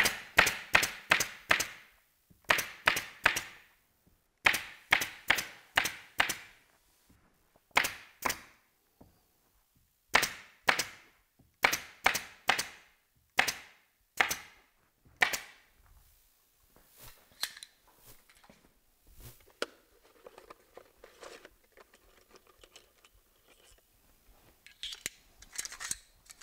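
Staple gun firing staples through canvas into the wooden frame of a theatre flat, in quick runs of several sharp shots, for about the first sixteen seconds. After that there are only faint handling sounds.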